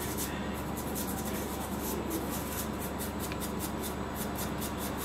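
Quick, light scratching and rubbing of a tool on a phone's circuit board around the exposed IC pads, many short strokes, over a steady electrical hum from the workbench equipment.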